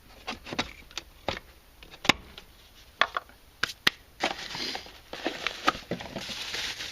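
Hard plastic clicks and knocks as the old mass airflow sensor is handled and pulled out of a Mercedes C230 W202's air intake, with the sharpest click about two seconds in and several more around three to four seconds. From about four seconds in, a steady rustling joins the clicks.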